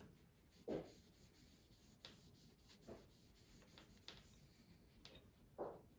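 Faint rubbing of a cloth-wrapped electrode, wired to a 9-volt battery, being worked against a steel knife blade during electro-etching. Several short soft scuffs, the loudest about a second in and near the end.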